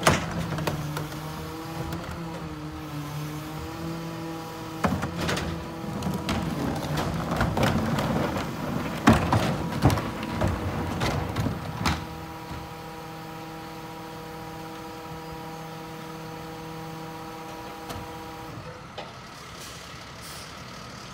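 Ez-Pack Apollo rear-loader garbage truck working: a steady hydraulic whine, broken in the middle by a run of knocks and bangs as trash carts are tipped into the hopper, then a steady whine again that drops away near the end.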